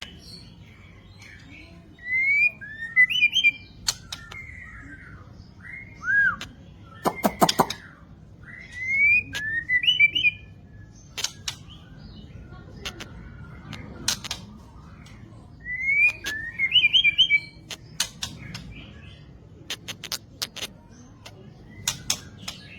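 White-rumped shama singing: a short rising whistled phrase repeated three times, about seven seconds apart, with other whistled notes and many sharp clicking calls in between.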